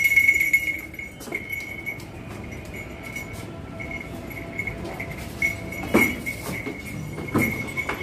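A small bell on a Barbari buck's collar jingling on and off as the goat moves, with a few sharp knocks, the loudest about six seconds in.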